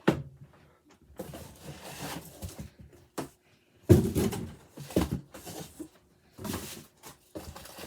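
Cardboard boxes and packaged figures being handled: rustling, scraping and knocks, the loudest a thump about four seconds in and another about a second later.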